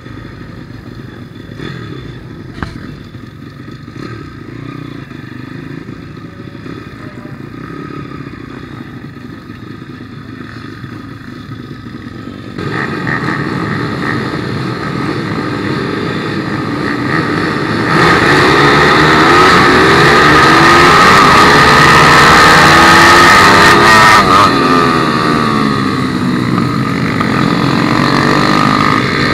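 Onboard sound of a 160cc single-cylinder four-stroke pit bike engine among other pit bikes: running at low revs at first, then, a little past halfway, revving hard off the start with pitch rising and falling through the gears as the pack races into a corner.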